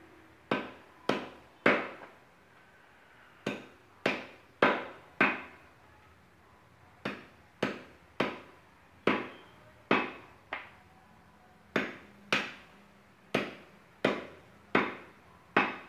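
A heavy cleaver chopping through goat meat and bone onto a wooden stump block: about nineteen sharp chops, in runs of two to four about half a second apart with short pauses between the runs.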